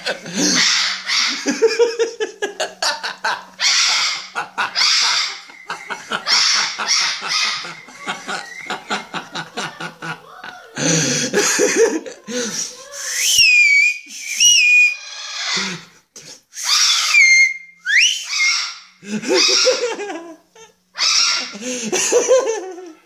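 Parrot screaming and squawking in fright in harsh, repeated bursts, with sharp whistled glides near the middle, over a steady low hum.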